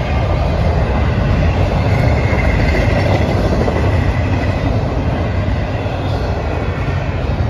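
Double-stack intermodal container train rolling past, with the steady noise of its well cars' steel wheels running on the rails.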